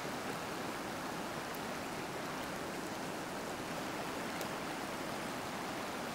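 Shallow river rushing steadily over rocks, with a couple of faint scrapes as a knife blade shaves curls down a wooden stick.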